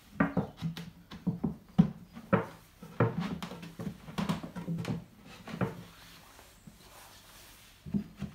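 Plywood parts of a van racking unit knocking and scraping on a workbench as they are pushed and slid into place: a run of short wooden knocks at uneven intervals, a quieter pause, then one more knock near the end.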